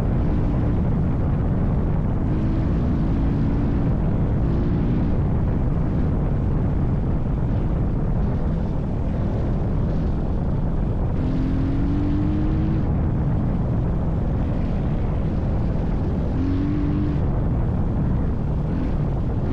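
A vehicle running steadily under a dense low rumble, with short bursts of engine tone now and then, one rising slightly about two-thirds of the way through.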